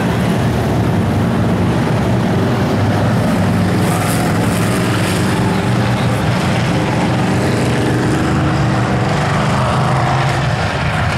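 Several dirt-track stock cars racing around the oval, their engines running loud and steady.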